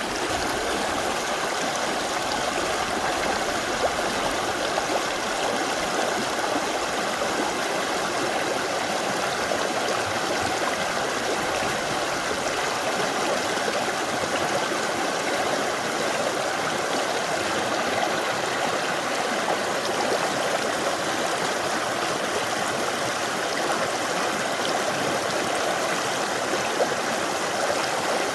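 Mountain valley stream flowing steadily: an even rush of water, unchanging throughout.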